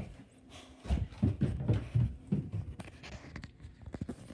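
Rustling and soft bumps of close handling and scuffling, with a few light clicks near the end.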